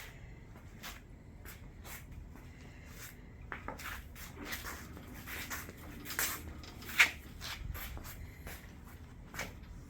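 Scattered light clicks and knocks of things being handled, with a sharper click about seven seconds in, over a faint low hum.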